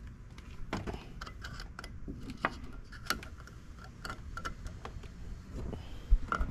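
Razor blade scraping at a truck's lettering: irregular light clicks and scrapes.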